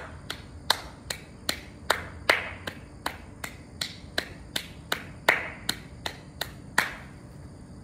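A steady run of about eighteen sharp snaps or clicks, about two and a half a second, some louder than others. They stop just under seven seconds in.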